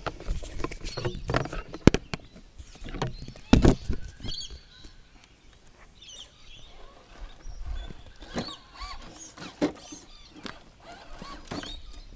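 Knocks, clacks and scrapes of a handheld camera and tripod being handled and set down on rock, loudest in the first few seconds, followed by quieter short bird chirps.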